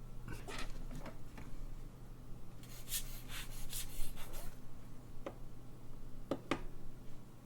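Small tools and clock parts being handled: light clicks and taps, a longer stretch of rubbing and scraping about three to four seconds in, and a few sharp clicks near the end, over a steady low hum.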